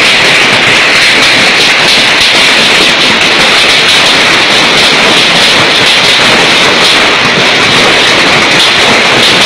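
Heavy hail pelting down on the ground and trees: a loud, steady hiss of countless small impacts.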